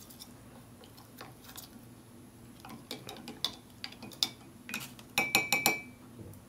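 A spoon stirring a drink in a ceramic mug, clicking and scraping against the inside. About five seconds in, a quick run of taps against the mug that ring briefly.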